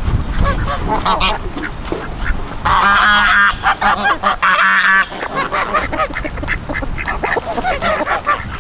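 A flock of ducks quacking, many short repeated calls overlapping, with two rapid runs of quacks about three and four and a half seconds in.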